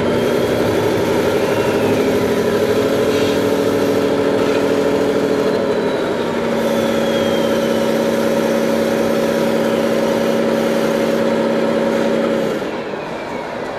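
Radio-controlled model trucks running under load, a steady engine-like drone as the wheel loader pushes the stuck tipper truck through the sand. The drone changes pitch about halfway through and drops away shortly before the end.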